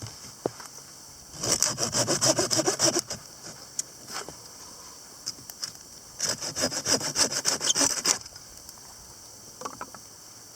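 Hand saw cutting through wood in two bursts of quick back-and-forth strokes, each lasting about two seconds.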